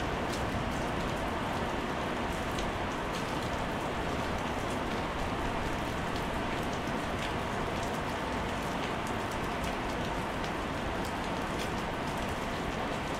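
Heavy rain falling steadily on wet paving tiles and puddles: a dense, even hiss sprinkled with sharp ticks of single drops.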